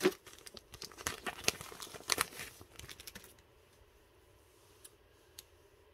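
Crinkling and rustling as the UV polar chenille for a fly is handled, a dense run of small clicks lasting about three seconds, then two faint ticks near the end.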